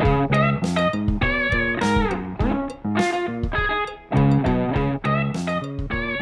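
Electric guitar and bass played through a 1956 Montgomery Ward tube guitar amp over programmed drums. It is a funk riff of short, repeated chord stabs, with bent notes sliding down in pitch.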